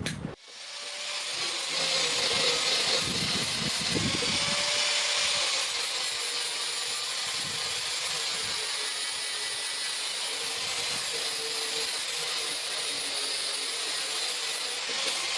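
A power tool spins up over about a second and then runs steadily with a high hiss, as in blacksmith finishing work on a spade blade.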